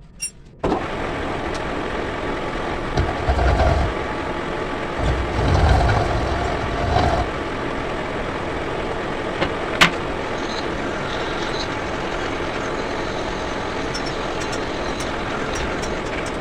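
Lathe machine switching on under a second in and running steadily with a constant hum while machining a truck bellcrank, with heavier low rumbles a few seconds in and a single sharp click about ten seconds in. The sound begins to die away at the very end.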